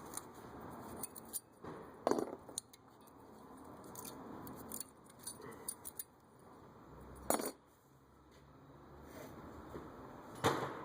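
Light metallic clinks and clatter of tools and brake parts being handled, with a few sharper knocks spread through.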